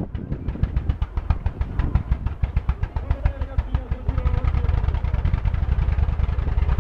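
A rapid string of firework bangs, many a second, running together into a continuous rattling barrage.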